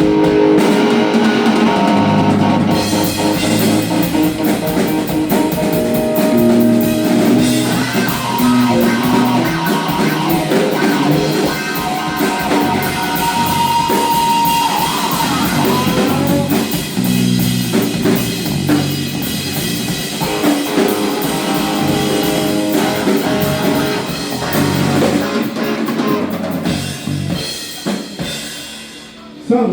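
Rock band playing live: electric guitar, bass and drum kit, with the drums and cymbals coming in about three seconds in and the playing dying away near the end.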